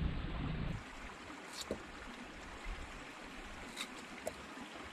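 Wind buffeting the microphone briefly at the start, then a steady outdoor hiss with a few soft clicks as a knife cuts sweet potato chunks over a pot of water.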